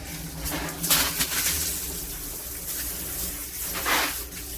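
Water spraying from a handheld shower head, a steady rushing hiss with louder surges about a second in and again near the end.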